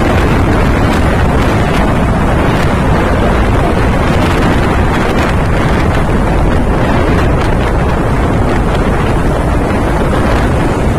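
Steady, loud wind rush buffeting the microphone of a KTM RC125 motorcycle ridden at highway speed, around 80 to 95 km/h, with the motorcycle's running noise blended into it.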